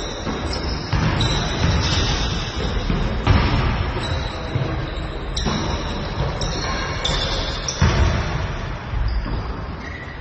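Basketball shoes squeaking on a gym floor during a practice game: short high squeals one after another, with the ball bouncing.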